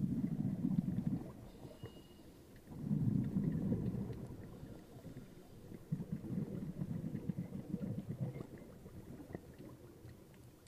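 Scuba diver's exhaled bubbles from the regulator, heard through the camera underwater: three low bubbling bursts a few seconds apart, one per breath, with faint crackling between them.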